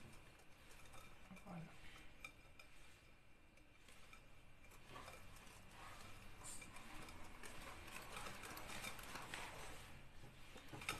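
Wire whisk stirring thick brownie batter by hand in a glass bowl: faint scraping and small clicks of the whisk against the glass, busier in the second half.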